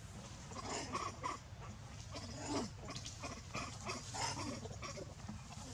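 Macaques making short, scattered squeaks and grunts, with one lower sliding call about halfway through, over a steady low rumble.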